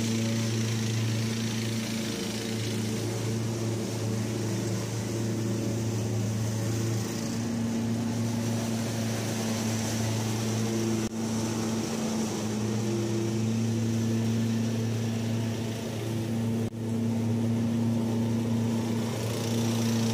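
Kubota ZG222 zero-turn mower with a Cyclone Rake leaf vacuum in tow, the engines running steadily at working speed: a low engine drone with a high hiss of air above it.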